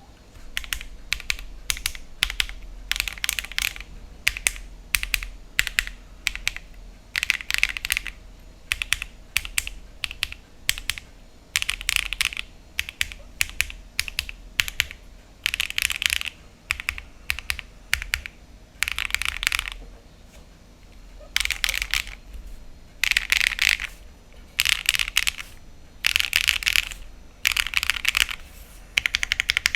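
Typing on a mechanical keyboard with lubed HMX Cheese linear switches, rapid keystrokes coming in bursts with short pauses between.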